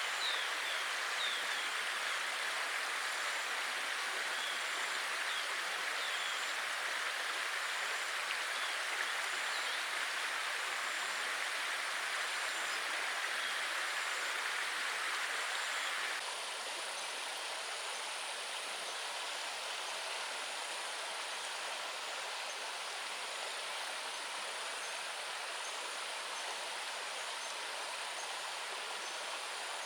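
Steady rain falling, an even hiss. About halfway through it turns slightly quieter and thinner.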